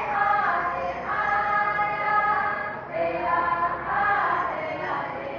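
A mixed group of men and women singing a powwow hand-drum song together in unison, in long held phrases.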